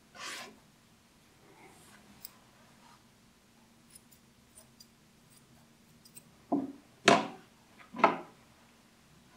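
Curved grooming scissors snipping the fur around a dog's paw, heard as faint light clicks. About two-thirds of the way in come three louder knocks and rustles.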